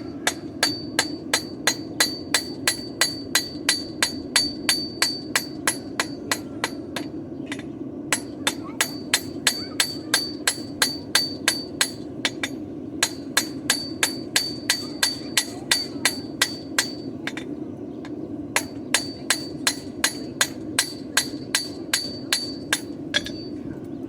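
Blacksmith's hand hammer striking a hot horseshoe on an anvil, forging it toward a hoof pick: steady blows about three a second in four runs with short pauses between, each blow ringing off the anvil.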